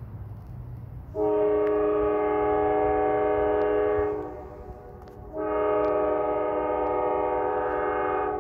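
A Nathan K5LA five-chime locomotive air horn sounds two long blasts of about three seconds each, with a short gap between them. These are the opening long blasts of the grade-crossing horn signal. A low diesel rumble from the approaching locomotive runs underneath.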